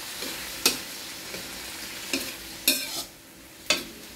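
Shrimp and pork sautéing in soy sauce in a wok, sizzling steadily, while a spatula stirs and scrapes the food and knocks sharply against the pan about four times. The sizzle drops lower about three seconds in.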